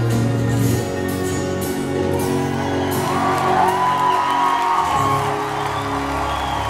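Live rock band playing held chords with electric guitar, the chord changing about a second in and again near five seconds. A high voice glides up and then down between about three and five seconds in.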